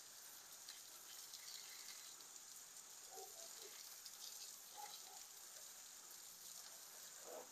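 Faint, steady hiss of water spraying from a garden hose onto a car.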